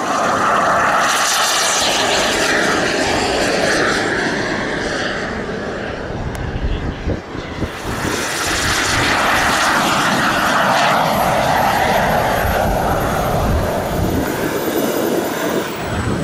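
Small gas-turbine engine of a radio-controlled model jet flying past, a loud jet roar that swells twice, with a thin high turbine whine sliding in pitch near the end.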